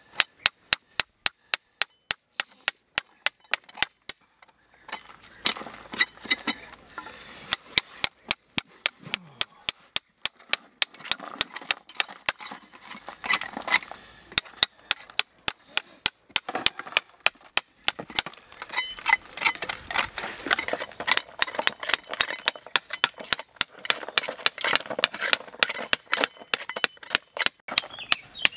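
A hammer striking a steel chisel driven into compacted earth: a steady run of sharp metallic blows, about three a second, each with a faint high ring. The blows break off briefly about four seconds in, then carry on.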